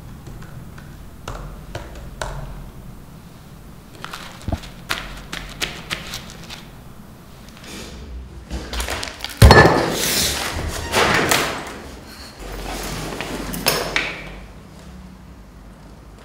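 Scattered light clicks and taps, then a loud thud about nine seconds in, followed by several seconds of rustling, rushing noise.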